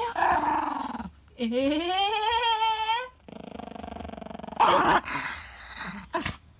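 Small long-haired Chihuahua growling in several short bouts, with a rising whining cry early on and a loud sharp yap a little past the middle. It is a warning growl from a dog that does not warm to the person filming it.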